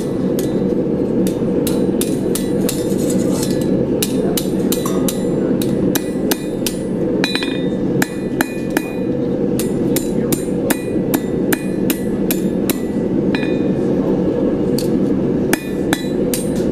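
Hand hammer striking a hot 1/4-inch mild steel rod on an anvil, a long run of blows at about two to three a second, some with a short ring, closing the arms of a twist-style campfire fork together. Beneath the blows runs a steady low rush of noise from the propane forge.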